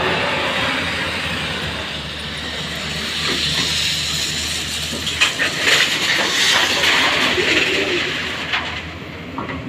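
Hyundai 210 hydraulic excavator working while loading a tipper truck: its diesel engine runs under a steady hiss, with scattered clattering about five to seven seconds in.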